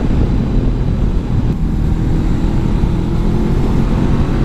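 Honda CB500X's 471 cc parallel-twin engine running at a steady cruise on part throttle, heard from the rider's position with wind and road rush over it.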